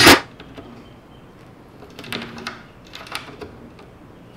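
A Ridgid cordless driver stops after a short final burst as it seats a screw in a steel toggle latch clamp. This is followed by a few light clicks about two and three seconds in.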